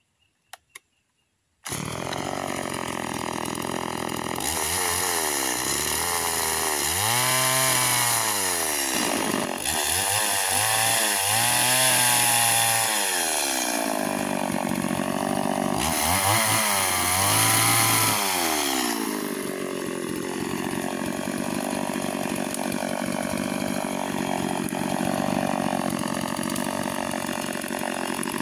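Small STIHL two-stroke chainsaw. After a couple of faint clicks it comes in abruptly, then runs at high revs through three long cutting passes into a tree stump, its pitch sagging and rising as the chain bites. It then settles to a steadier, lower note for the last several seconds.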